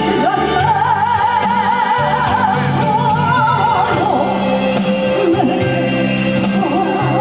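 Trot music: a lead melody in wide vibrato sustains over held bass and chord accompaniment.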